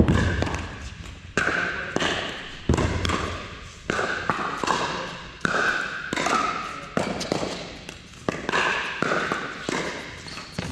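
Pickleball rally: a run of sharp hollow pops from paddles striking the plastic ball and the ball bouncing on the court, about one a second, each trailing off in the echo of a large hall.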